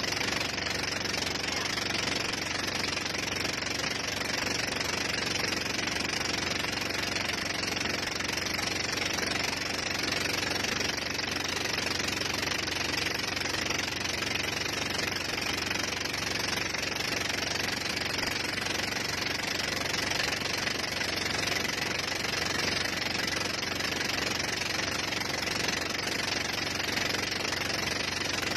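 Towing boat's engine running steadily under way, mixed with rushing wind and water noise.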